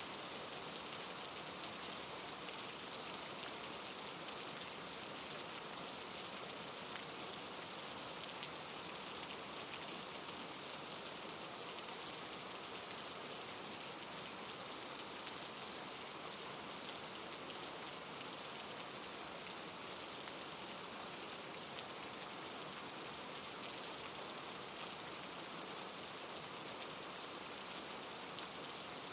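Steady rain falling, an even hiss of many small drops with no thunder or change in strength.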